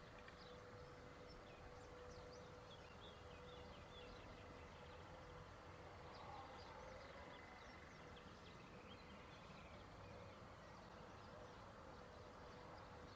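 Near silence: faint outdoor ambience with scattered tiny high chirps and a thin, steady faint tone.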